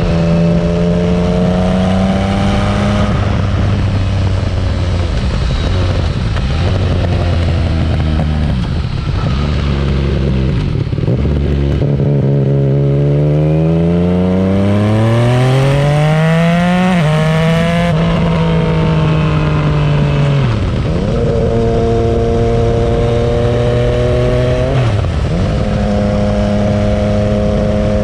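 Yamaha Tracer 900 GT's three-cylinder engine, heard through a Roadsitalia Projsix titanium full exhaust with non-catalysed headers and a road-legal silencer with its dB killer fitted, while riding. The revs hold steady, then climb in a long pull through the middle. The pitch drops suddenly at a gear change, and it dips and recovers twice more near the end.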